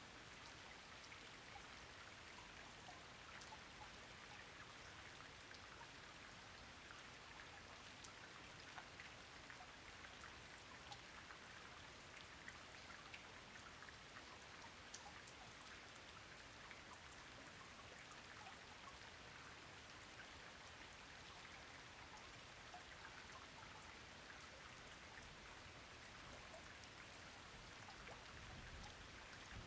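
Soft, steady rainfall, with many distinct single raindrop hits ticking over an even hiss. A faint low rumble swells near the end.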